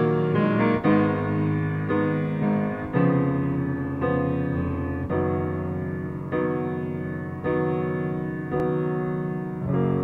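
Piano music, new notes or chords struck about once a second.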